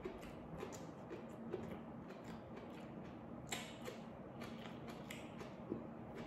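Close-miked eating sounds: wet chewing and mouth clicks, with soft crackles of fingers working rice and food on the plate. The clicks come irregularly, with a louder one about halfway through.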